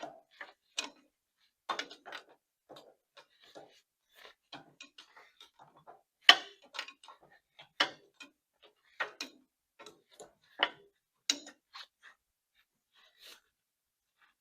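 Hand wrench working a bolt out of a tractor steering U-joint: irregular sharp metallic clicks and clinks, the loudest about six seconds in.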